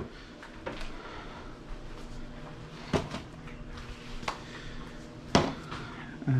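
A few separate knocks and clacks of kitchen containers being handled: salt and pepper containers taken from a cupboard and set down on a countertop, the loudest about five seconds in. A faint steady hum runs underneath.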